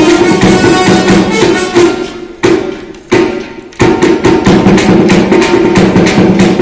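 Indian folk dance music with a steady percussion beat. About two seconds in it breaks into three separate loud strikes that each fade away, and the full beat comes back near the four-second mark.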